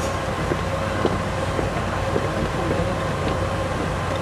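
Keiyo Rinkai Railway KD60 diesel locomotive idling, a steady low hum with a few faint clicks.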